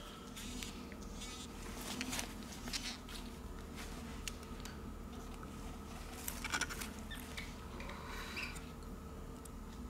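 Small handling noises from working inside an opened Xiaomi Mi 9 smartphone: scattered light clicks and brief scratchy rustles as gloved fingers and tweezers fit a flex cable and parts into place, the sharpest clicks about six and a half seconds in. A faint steady hum runs underneath.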